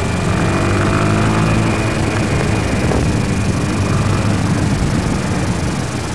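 Honda Twister motorcycle's single-cylinder engine running while riding, rising in pitch over the first second or so as it accelerates, then holding steady.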